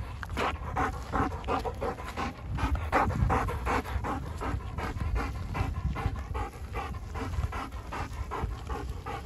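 A German Shepherd dog panting rapidly and close up, about three breaths a second in an even rhythm.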